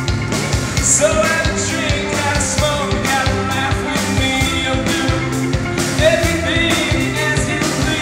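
Rock song with a steady drum beat, bass and a singing voice.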